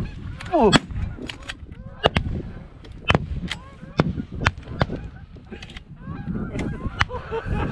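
Geese honking from a flock overhead, one call gliding down steeply under a second in and more short calls through the second half, mixed with several sharp clicks and knocks.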